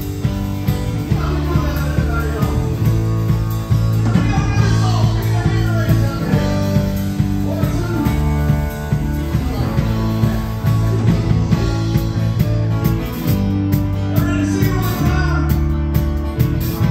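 Live band playing a song with electric guitar, bass guitar and drums.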